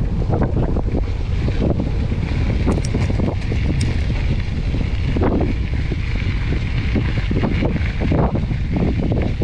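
Mountain bike riding over a dirt trail: tyres rumbling on the ground, with constant small rattles and knocks from the bike, and wind buffeting the action camera's microphone.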